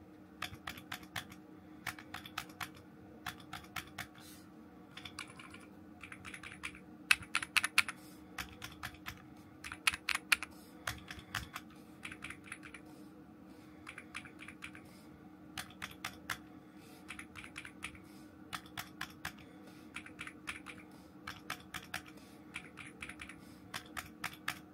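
Keys of an EPOMAKER Tide75 aluminium-case mechanical keyboard pressed one at a time and in short runs, a few louder presses near the middle, including the spacebar, whose keystroke sounds as if it echoes in the case.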